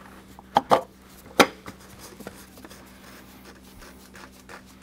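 Plastic oil filter cap being handled and set into its housing by gloved hands: a few sharp clicks and knocks in the first second and a half, then faint handling sounds.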